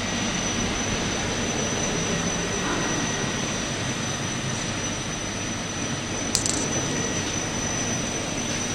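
Steady hum and hiss of machinery running on the tube welding line, with a thin high whine throughout. A single sharp click sounds about six and a half seconds in.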